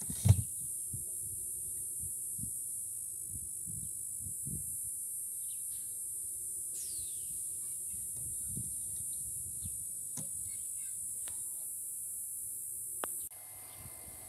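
Automatic soil gas-flux chamber with hinged lids swung shut by pneumatic cylinders: a thump near the start and a few clicks and knocks. A steady high hiss runs underneath and drops away sharply near the end.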